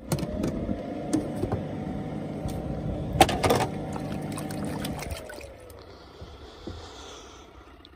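Rovus portable mini washing machine running with its lid off: a motor hum with water and clothes churning in the tub, and a few sharp knocks about three seconds in. About five seconds in the motor winds down and the churning fades.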